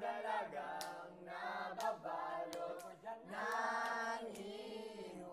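Young voices singing together without instruments, with one long held note about three and a half seconds in.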